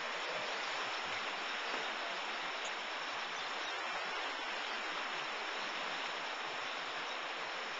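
Shallow creek water rushing over rocks in a riffle: a steady, even rush of moving water.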